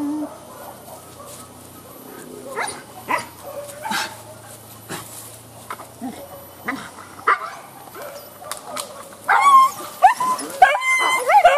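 Leashed hunting dogs whining and yipping, breaking into a run of loud, high-pitched excited yelps about nine seconds in.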